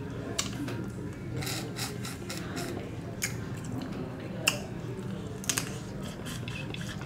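Shellfish shells being cracked and pulled apart by hand close to the microphone, with several sharp cracks and snaps, and biting and chewing at the shell near the end, over a steady low hum.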